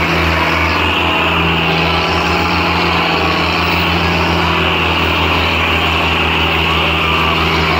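Diesel tractor engine running steadily, with a fast, even low throb.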